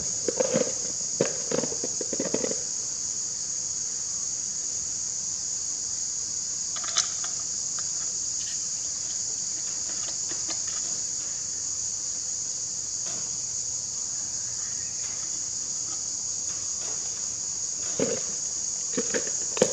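Steady high-pitched chorus of insects. Over it come a few light clinks and taps of bolts being fitted by hand into an engine's timing cover: a cluster in the first couple of seconds, one around seven seconds in, and more near the end.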